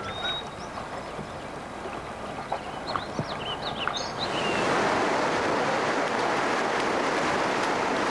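River water running past a whitewater kayak. About four seconds in it swells into a steady, louder rush of whitewater as the boat enters a rapid. A few faint short chirps sound in the first half.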